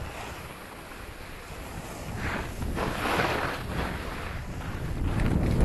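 Wind noise on the microphone and skis hissing and scraping over packed snow, with a few louder swishes a couple of seconds in and the rumble growing louder toward the end.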